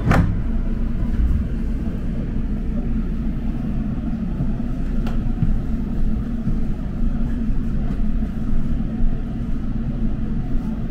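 Seoul Metro Line 2 subway train running, a steady low rumble heard from inside the carriage, with a sharp click at the start and a fainter one about five seconds in.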